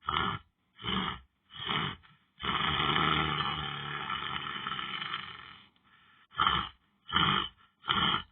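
A person snoring in uneven bursts: three short snores, then one long snore of about three seconds, then three more short ones.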